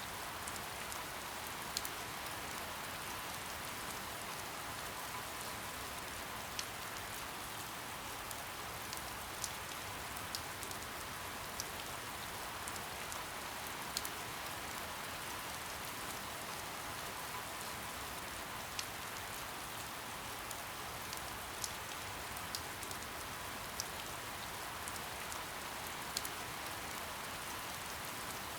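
Steady, gentle rain: an even hiss of rainfall with individual drops ticking sharply every second or so.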